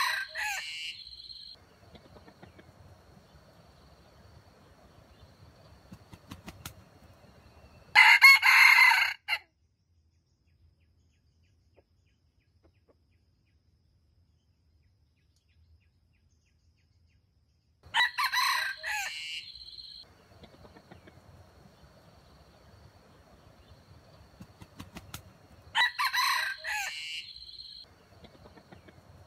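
Red junglefowl roosters crowing: four crows, each lasting a second or two, spaced roughly eight to ten seconds apart. The second crow is the loudest, with faint rustling between the crows.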